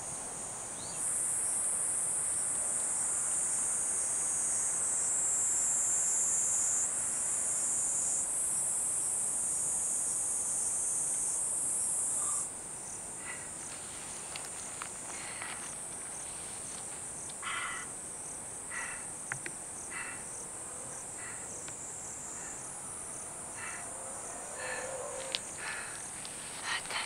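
A steady, high-pitched drone of an insect chorus, loud for the first dozen seconds and then dropping to a quieter level. Faint scattered ticks and rustles come in over the second half.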